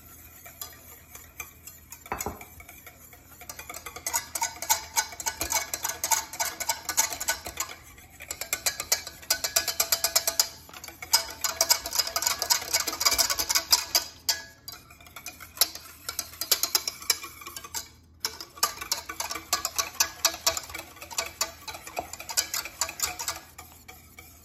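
Wire whisk beating egg yolks and oil into mayonnaise by hand in a stainless steel saucepan: fast, steady clicking and scraping of the wires against the pot. It starts quieter, then runs on with a few short pauses.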